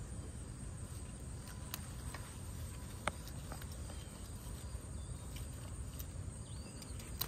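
Sharp clicks of hand pruning shears snipping long-bean stems, the loudest about three seconds in and another near the end, with light rustling of the vines over a steady low background rumble.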